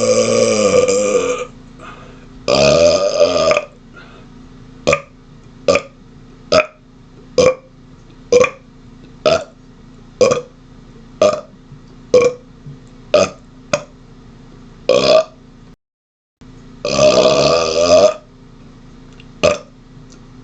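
A man burping on purpose: a long drawn-out burp fading out at the start and another soon after, then a run of about a dozen short rapid-fire burps a little under a second apart. Another long burp comes a little after the middle, followed by more short burps.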